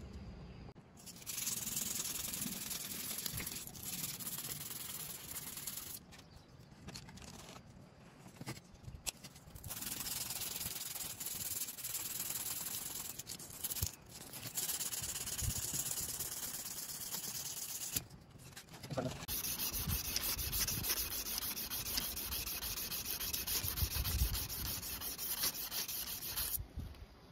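A strip of 320-grit abrasive belt pulled back and forth by hand around a steel John Deere hydraulic pump shaft, sanding out a nick. The scratchy sanding comes in long spells of several seconds, with brief pauses between.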